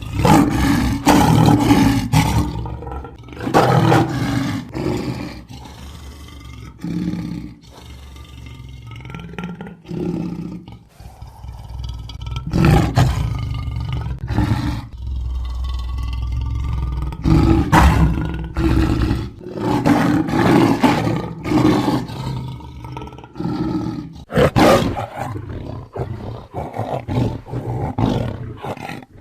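Big-cat roars and growls used as sabre-toothed cat (Smilodon) sound effects. It is a series of loud roars lasting a second or two each, separated by lower, longer growling stretches.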